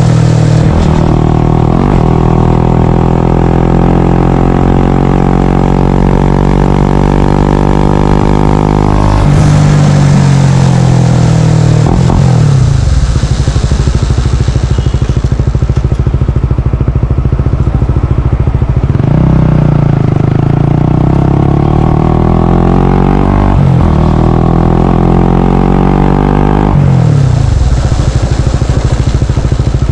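Small single-cylinder Honda CBR 125R/150R four-stroke running through a Yoshimura R77 full-system exhaust. The engine note climbs steadily for several seconds and drops back, runs low for a while, then rises and falls twice more near the end.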